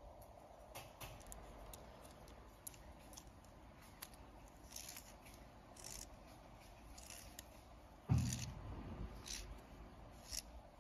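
Faint clicks and light scraping as fingers turn and seat the metal rings on a camera head, with one louder knock about eight seconds in.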